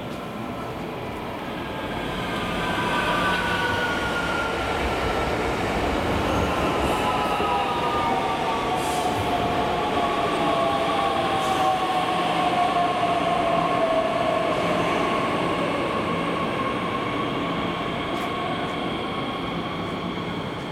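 Bombardier Talent 2 (class 442) electric multiple unit pulling into a station. It runs over the rails and gives off several whining tones that slide down in pitch as it slows. It grows louder about two seconds in and eases off near the end.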